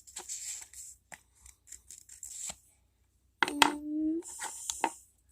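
Felt-tip marker scratching on paper in short strokes while letters are drawn. About three and a half seconds in there is a brief voiced sound, like a letter being said aloud, then more scratching.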